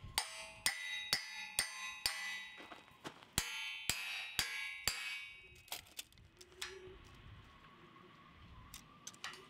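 Hammer blows on a rusty steel wedge driven between two steel bars to spread the gap before welding. Ringing metallic clangs come about two a second for the first five seconds, then a few lighter taps.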